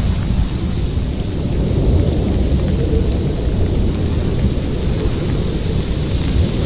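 Strong wind buffeting the microphone: a steady, loud low rumble with a hiss over it.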